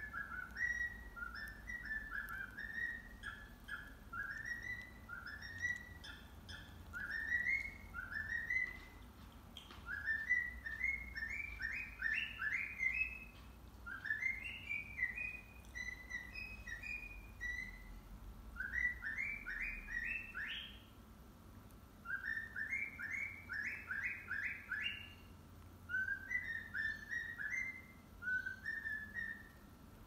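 Cockatiel whistling a tune in short rising notes, in quick runs of several notes with brief pauses between phrases, played back from a video in the background.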